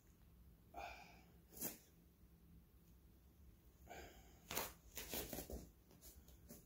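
A man's short, sharp exhales of effort during squat reps, one about a second in and another about four seconds in, each followed by a few quick taps or knocks.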